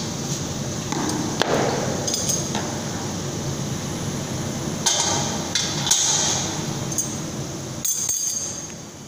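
Steel tongs and a submersible motor rotor clinking and knocking against the brazing machine's steel stand as the rotor is lifted out and another is set in place. A handful of sharp metallic clinks, the loudest about five and six seconds in, over a steady machine hum.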